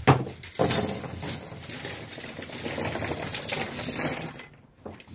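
A junk jar of loose screws, washers and small metal parts being dumped out: a knock, then a dense clatter of small metal pieces pouring out and spilling for about four seconds before it dies away.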